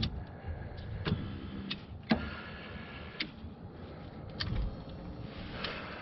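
2013 Camaro's electric power seat motors running in several short runs as the replaced 6-way seat switch is worked, with sharp clicks about once a second. The seat moving again is the sign that the new switch works.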